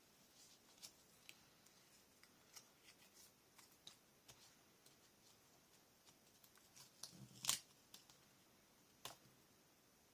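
Faint handling of paper cut-outs on a scrapbook page: scattered light ticks and small rustles as pieces are picked up and placed, with one louder tap about seven and a half seconds in.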